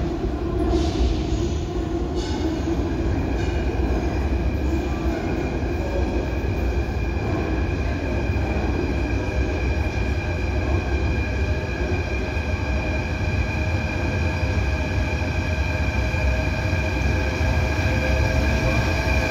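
Athens metro train approaching through the tunnel and running into the station, with a low rumble throughout. A steady high-pitched whine sets in a couple of seconds in and grows slightly louder near the end as the train reaches the platform.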